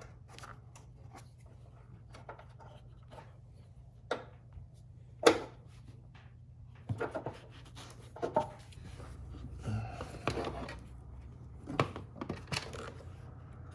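Hands working with wiring and small tools: scattered clicks, taps and rustling, the sharpest knock about five seconds in.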